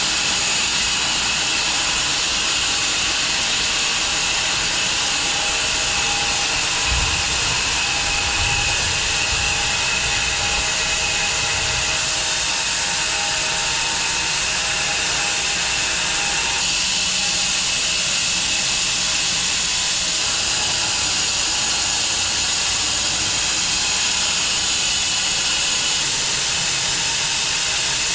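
Home-built 6 ft wide bandsaw mill running steadily, its band blade cutting through an elm log with a loud, even hiss. A few low knocks come partway through.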